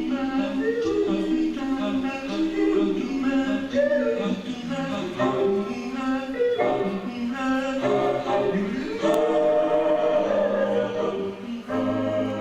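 Music with voices singing together, choir-like, in a series of sustained, shifting notes. Near the end it settles into a steadier held chord.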